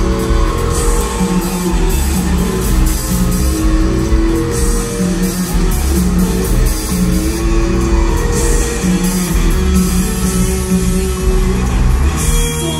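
Rock band playing live and loud, with electric guitar, bass, keyboards and drums, heard from the audience in a concert hall. About twelve seconds in, the playing thins to a few held notes.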